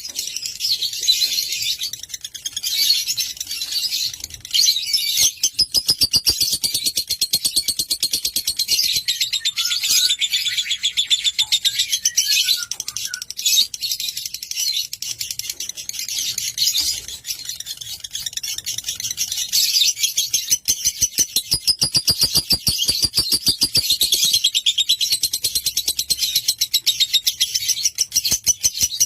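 Lovebird singing a long, rapid, high-pitched chattering song, near-continuous with only brief pauses. It is the kind of extended chatter that keepers play to provoke other lovebirds into song and to train young birds.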